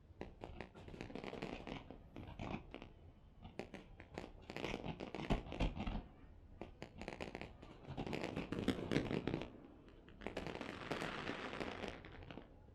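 Fireworks crackling: several bursts of rapid, sharp crackling pops, with thinner pops and hiss between them.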